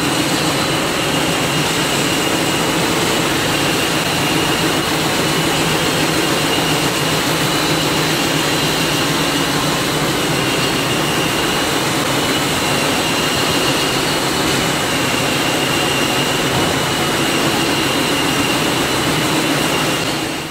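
CNC wood rotary cutting machine (veneer peeling lathe) running at speed while it peels a log into veneer. It makes a loud, steady mechanical noise with a high whine over it.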